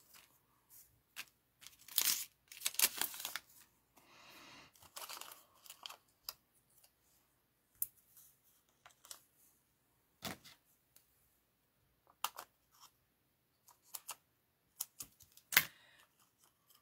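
Peeling and tearing of foam adhesive dimensionals off their backing sheet, with paper rustling in short stretches over the first few seconds, then scattered light clicks and taps.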